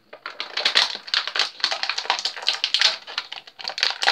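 Clear plastic action-figure packaging crinkling and crackling as it is handled and pulled open: a rapid, irregular run of crackles starting a moment in.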